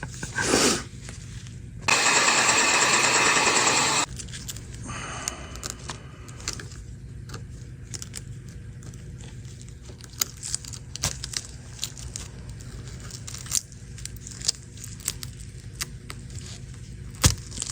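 Hands rustling and handling small objects, with many light clicks and scrapes. About two seconds in, a loud steady rushing hiss starts suddenly and cuts off about two seconds later.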